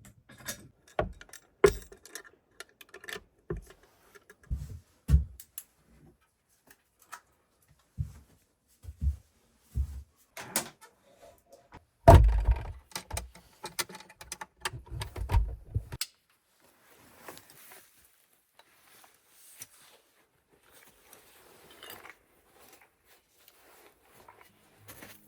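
Irregular knocks, clunks and clicks, with a heavy thud about twelve seconds in and a short run of thuds after it, then only faint rustling.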